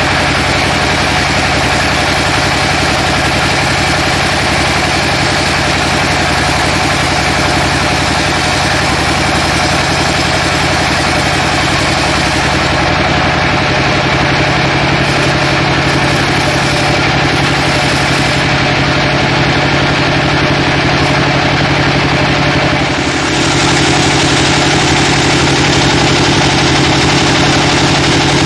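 Band sawmill running, its blade sawing lengthwise through a teak log, a steady mechanical drone with the whine of the blade. It dips briefly about 23 seconds in and then carries on slightly louder.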